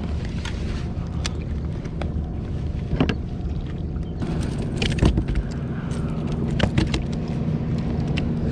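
Wind rumbling on the microphone over open water, with a few sharp clicks and knocks as a small grouper is handled and unhooked on a plastic kayak deck.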